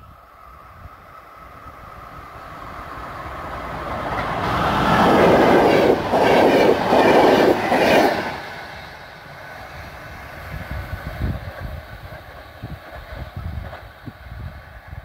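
Passenger train with Intercity coaches approaching and passing at speed: the rush of wheels on rail grows louder, peaks in about three seconds of rhythmic clickety-clack as the coaches go by, then drops away abruptly and fades to a low, uneven rumble as the train recedes.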